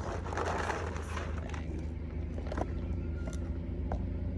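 Car engine idling steadily, with a few light clicks and knocks over it.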